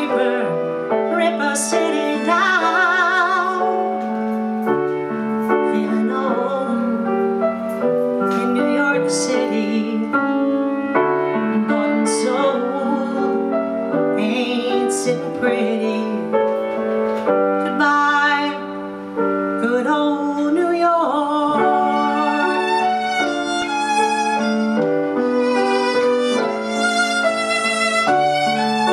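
Piano and violin playing together: sustained piano chords with the violin's vibrato lines winding over them.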